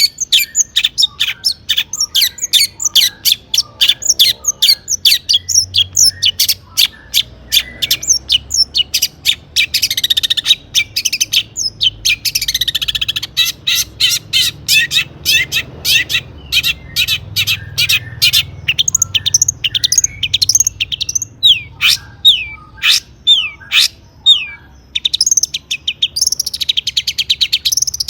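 Long-tailed shrike (cendet) singing without pause: a rapid stream of sharp chattering and chirping notes, with fast trills through the middle and quick down-slurred whistles near the end.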